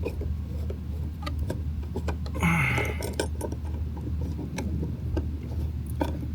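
Scattered light clicks and taps of a metal conduit clamp being worked loose from a trash can's wheel axle, with a brief scraping rasp about two and a half seconds in, over a steady low hum.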